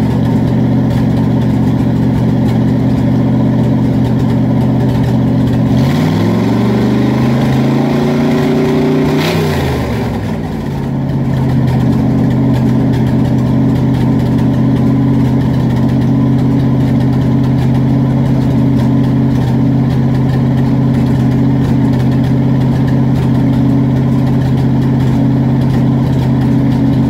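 Ford 460 (7.5 L) big-block V8 running out of the vehicle through open headers with no exhaust system, idling steadily. About six seconds in it is revved up, held for about three seconds, then drops back to idle.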